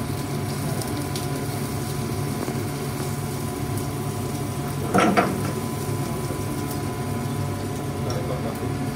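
Steady hum of a commercial kitchen's extraction and machinery, with a brief double clatter about five seconds in.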